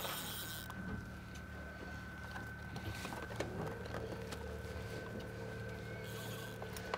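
Boat's outboard motor running steadily at trolling speed, a low hum with a thin steady whine above it. About halfway through a second tone slides up and holds, and faint scattered ticks come and go.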